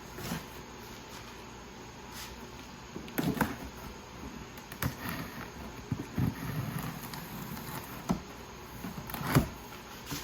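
Cardboard shipping box being handled and opened by hand: irregular rustles, scrapes and light taps, with a sharper knock near the end.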